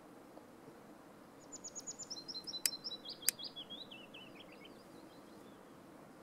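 A small songbird singing one phrase of about three seconds: a quick run of high repeated notes, then notes that step down in pitch to a short ending. Two sharp clicks cut in during the song. Faint steady background hiss throughout.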